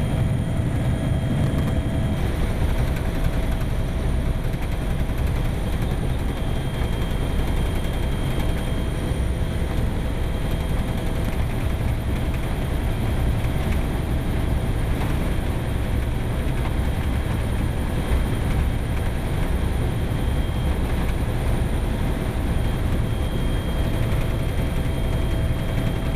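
A vehicle's engine running steadily: an unbroken low rumble with a few faint steady whining tones above it.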